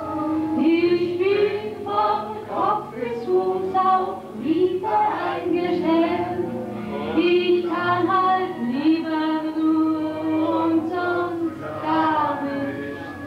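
Music with several voices singing a song over an accompaniment, with some notes held long.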